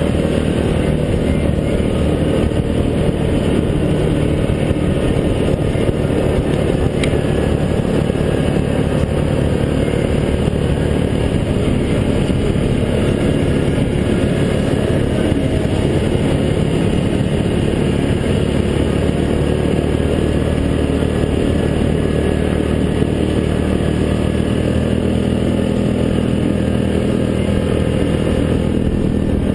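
Yamaha Grizzly 700 ATV's single-cylinder four-stroke engine running steadily under way, its pitch shifting a little with the throttle.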